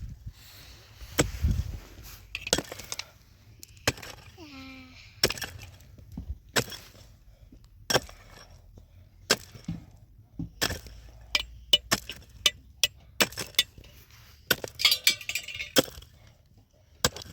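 Hard objects knocking and clinking in a string of sharp, separate strikes at uneven intervals, with a short squeak about four seconds in.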